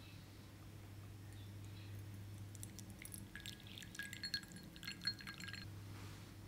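Hot water poured from a glass measuring jug into a ceramic plate around a small glass bowl, trickling and splashing for about three seconds from a few seconds in. A low steady hum runs underneath.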